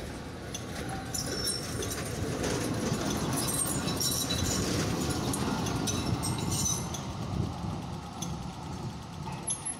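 Melbourne A1-class tram rolling past close by on its rails, a low rumble that swells to its loudest about three to six seconds in and then eases off as it moves away. Short high-pitched squeals come and go while it passes.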